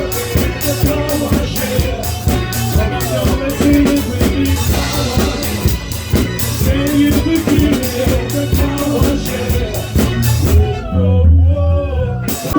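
Live soul band playing: drum kit with regular cymbal strokes, bass and a singer. About two seconds from the end the cymbals stop under a held low note, closed by one last hit, like the band's final chord.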